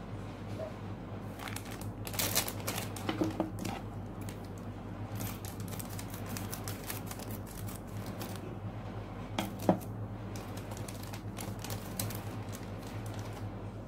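Plastic model-kit parts being handled: runners clicking against each other and a clear plastic bag crinkling, in scattered clicks and crackles loudest a couple of seconds in, with one sharp tap near the end. A steady low hum runs underneath.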